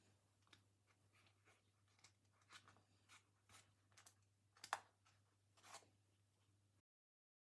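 Faint, irregular scraping and tapping of a chopstick stirring softened chocolate wafers in a plastic microwave bowl, the loudest tap a little under five seconds in, over a faint low hum. The chocolate has softened but has not yet melted.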